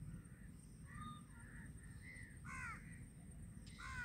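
Crows cawing faintly, several short calls a second or so apart, over a low steady background hum.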